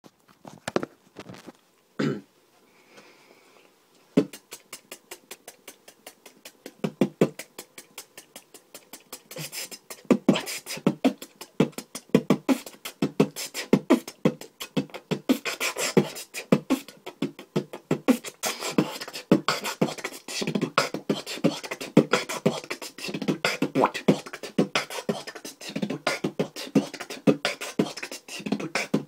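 Fast, technical human beatboxing by a teenage boy. A few scattered mouth clicks open it, then a rhythmic beat of sharp mouth-made percussion starts about four seconds in and grows louder and denser about ten seconds in.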